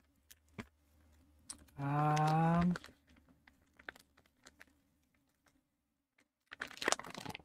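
Foil-lined freeze-dried meal pouch being handled, giving scattered small clicks and crinkles. A short crinkling rustle near the end comes as the pouch is opened. About two seconds in there is a brief hummed voice sound.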